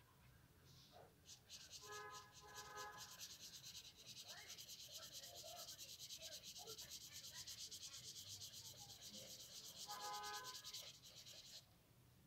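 Felt-tip marker scribbling on paper: a fast, scratchy rub of rapid back-and-forth strokes that starts about a second in and stops shortly before the end.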